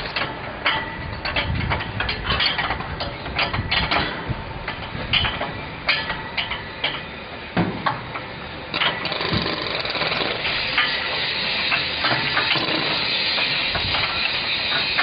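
Irregular clanks and clicks of steel hand tools working at the bolts of a concrete block machine's vibrator motor and mould frame. About nine seconds in, a steady hiss sets in and continues under the knocks.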